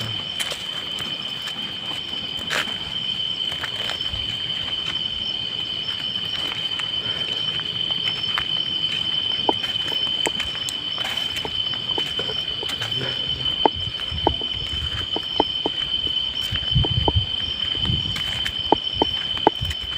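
Night insects, most likely crickets, keeping up one steady, unbroken high-pitched trill. Scattered sharp clicks and low thuds come in over it in the second half.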